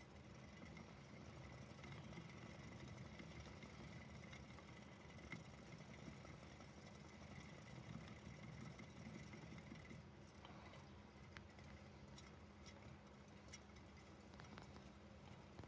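Faint steady whir and rattle of a hamster's exercise wheel spinning as a Roborovski hamster runs in it. It stops about two-thirds of the way through, leaving small scattered ticks and scratches.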